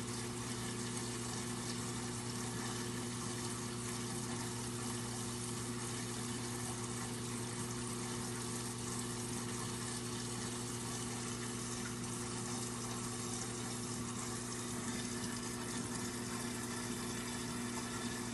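Reef aquarium equipment running: a steady low pump hum with a constant hiss of circulating water.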